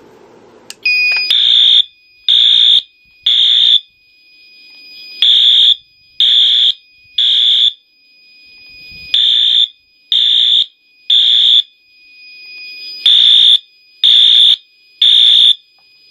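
Wheelock AS horn-strobe sounding the temporal-three evacuation pattern: three short loud horn blasts, a pause, then three more, four rounds in all. A faint steady high tone runs under and between the blasts.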